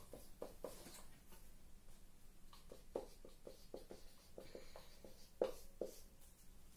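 Marker pen writing on a whiteboard: a faint run of short strokes and taps as numbers are written, the strongest about three and five and a half seconds in.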